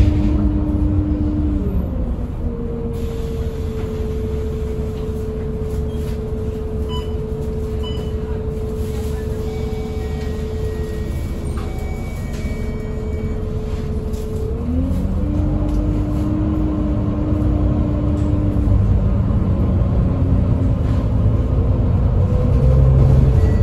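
Volvo B9TL double-decker bus under way, its 9.4-litre Volvo D9B diesel engine and ZF EcoLife automatic gearbox running with a low rumble and a steady whining tone. The whine shifts pitch about two seconds in, again around two-thirds of the way through, and climbs near the end as the bus changes speed and gear.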